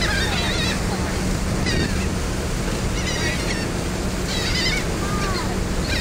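Gulls calling, a handful of short high wavering cries every second or so, over a steady rush of wind and churning wake with a low, even ferry engine hum.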